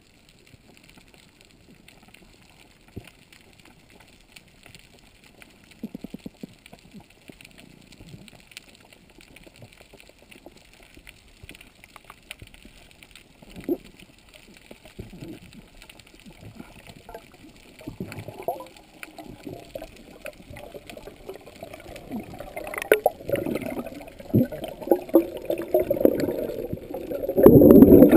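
Water heard through an underwater camera: faint scattered clicks at first, then water sloshing and gurgling that builds up. The loudest burst of bubbles and churning comes near the end as the diver breaks the surface.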